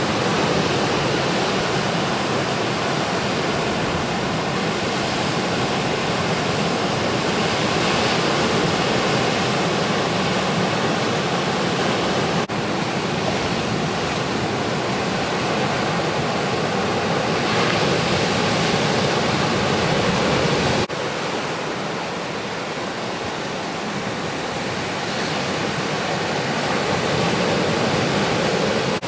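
Steady rush of ocean surf breaking. The sound changes abruptly twice, about 12 and 21 seconds in, dropping a little after the second change.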